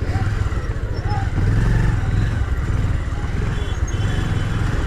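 Motorcycle engine running steadily while riding, with rushing wind noise.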